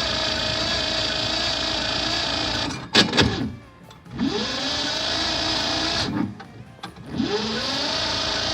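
Farm Pro 2425 tractor's starter motor cranking the cold diesel engine in three tries, each opening with a rising whine and broken off by short pauses about three and six seconds in; the engine does not catch. The owner suspects the glow plugs don't work.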